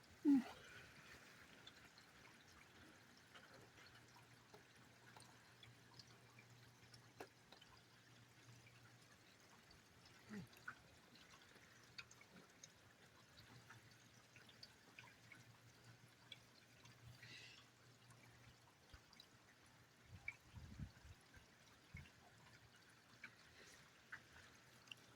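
Faint rain and dripping water with scattered small ticks, under a low steady hum. A few brief low thumps come about twenty seconds in.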